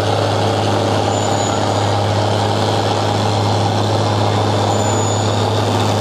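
Allis-Chalmers D21 tractor's six-cylinder diesel engine running hard at a steady pitch under heavy load as it drags a weighted pulling sled.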